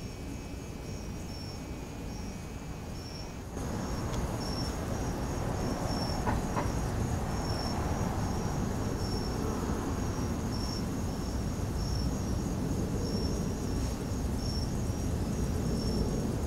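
Night insects, crickets, calling: a steady high trill with a chirp repeating about one and a half times a second. A lower steady trill drops out about three and a half seconds in, just as a low steady rushing noise comes up and stays.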